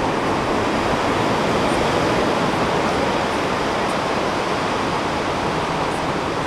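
Steady outdoor rushing noise, even and unbroken, like moving water or wind.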